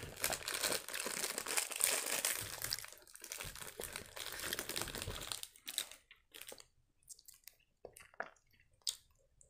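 Foil-lined plastic wrapper of a Milka Soft & Choc sponge cake crinkling loudly as it is torn open and peeled back by hand for about five seconds. After that come only a few short, softer crackles as the wrapper is handled.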